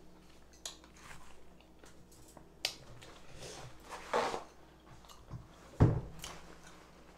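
Handling noises while eating at a table: a few light clicks and knocks, a short paper rustle about four seconds in as a white paper napkin is taken up, and one heavy low thump near six seconds, the loudest sound.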